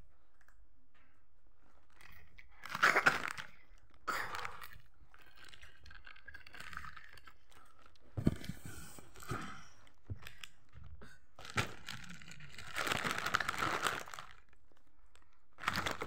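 Close crunching and crinkling in irregular bursts as someone eats a snack and handles its packaging, with a few sharp clicks about eight seconds in.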